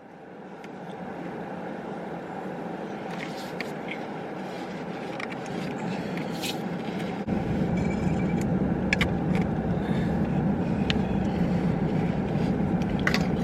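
Steady car road and engine noise heard from inside the cabin, fading in at the start, with a deeper rumble joining about seven seconds in and a few small clicks.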